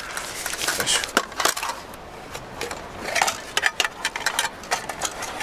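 Handling of an aluminium mess tin: a fabric mesh pouch rustling as the tin is drawn out, then light metallic clicks and clinks as its lid is taken off over a wire rack inside.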